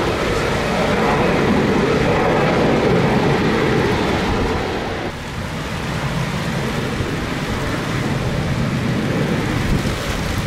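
Twin-jet airliner landing in heavy rain: steady jet engine noise mixed with rain and wind buffeting the microphone. It is loudest in the first half and eases a little about halfway through.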